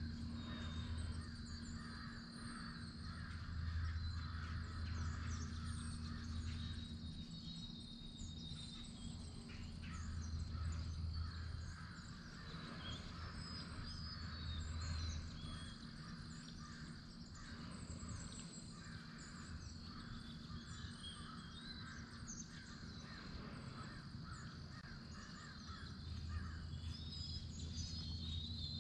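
Faint woodland ambience: birds calling with many short high chirps, and crow-like caws among them, over a low steady rumble.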